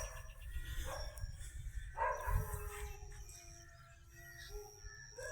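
A dog barking a few times, faintly, over a low rumble.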